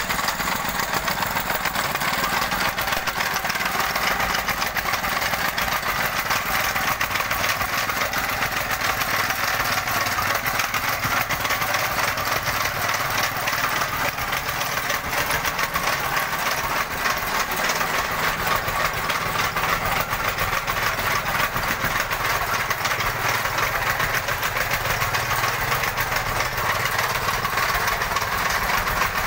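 Petrol tamping rammer (jumping jack compactor) running and pounding gravel soil with a steady, fast hammering. The uploader says the machine is running abnormally and not compacting properly.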